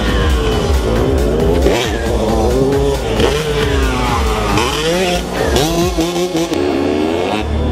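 Motorcycle engines revving, their pitch rising and falling again and again, over loud music with a heavy bass.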